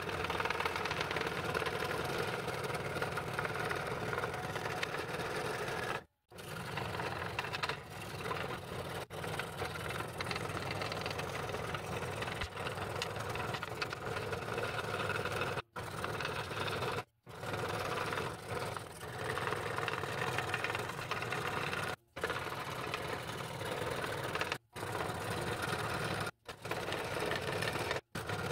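Scroll saw running steadily, its fine reciprocating blade cutting the curved outline of a thick layered wood blank. The sound stops abruptly for a moment several times.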